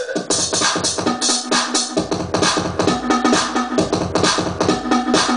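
Progressive house DJ mix playing from CDJ decks through a mixer, with a steady electronic beat; a deep bass line comes in about two seconds in.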